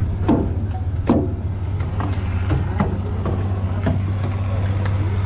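Steady low drone of the ferry's engine, with footsteps knocking on metal stair treads about once a second for the first four seconds.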